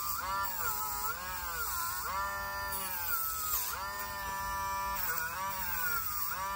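Dremel rotary tool running with a slot-car wheel spinning on an axle in its chuck while a foam sanding pad scuffs the wheel where the tyre will be glued. Its high whine repeatedly sags in pitch and recovers, several times over.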